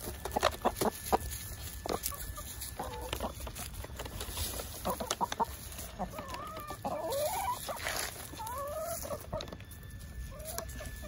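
Backyard chickens clucking with short calls that rise and fall in pitch as they feed on mealworms. Sharp taps of their beaks pecking on a wooden board come several times in the first second and now and then after.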